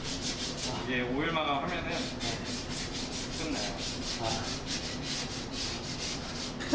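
Sandpaper rubbing on a wooden cutting board in quick, even strokes, about five a second.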